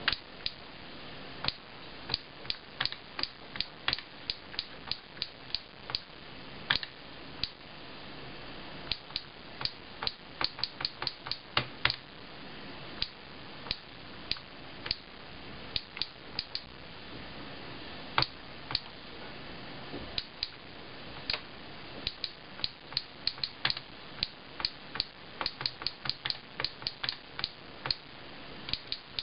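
Keys of a Sharp Mobilion HC-4500 handheld PC's small keyboard clicking as text is typed: irregular runs of sharp clicks with short pauses between them.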